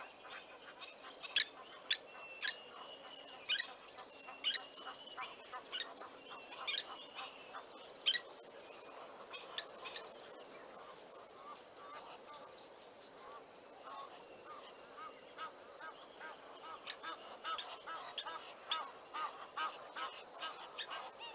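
Wild birds calling: a steady stream of short, sharp calls and brief whistles, the loudest in the first few seconds, over a faint outdoor hush.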